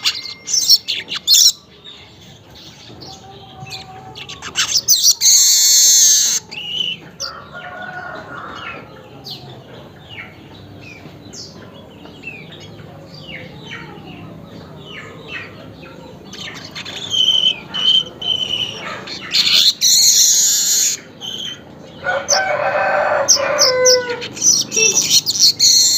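Weaver bird (burung manyar) chattering: bursts of dry, hissing chatter come a few seconds apart, with many quick chirps in between. About 22 seconds in there is a longer, lower pitched call that drops in pitch at its end.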